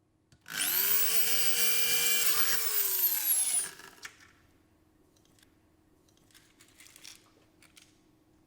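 An electric power tool's motor spins up, runs at a steady whine for about two seconds, then winds down with falling pitch and stops. A few faint clicks of handling follow.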